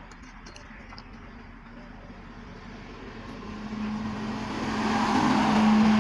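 An engine running with a steady hum that grows much louder over the second half, peaking near the end.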